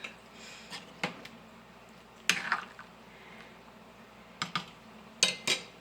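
Kitchen handling sounds: a few sharp clicks and knocks of utensils or containers against the pot and counter, spaced out with quiet in between, while the soup heats.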